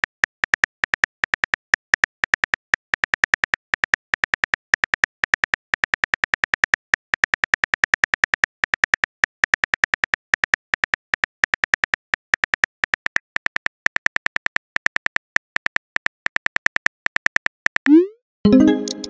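Rapid keyboard-tap clicks, about five a second, from an animated texting app typing out a message letter by letter. Near the end comes a brief rising swoosh and a short ringing blip as the message is sent.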